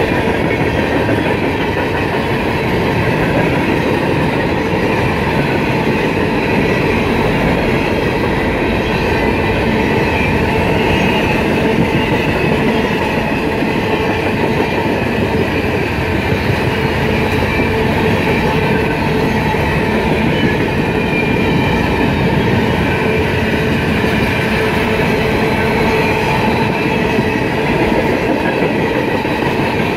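Freight cars of a long mixed freight train (hoppers, boxcars, tank cars) rolling steadily past at close range: a constant rumble and rattle of steel wheels on the rails.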